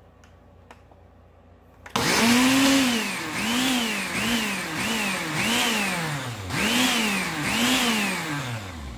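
Countertop blender starting about two seconds in and running on a thick mix of fresh basil and parsley with olive oil. The motor's pitch rises and falls six or seven times as the blades churn the herbs, and it stops near the end.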